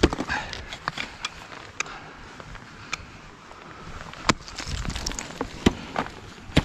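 Ice axe picks and crampon points striking into a frozen ice wall: a run of sharp, separate strikes, the loudest about four and five and a half seconds in, with crunching and scraping of ice between them.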